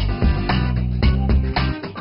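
Background music: a guitar-led track with a steady rhythm.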